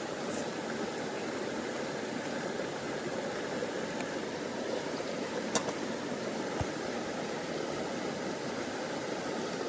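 Steady rush of a flowing river, with one sharp click a little past halfway and a short low knock about a second later.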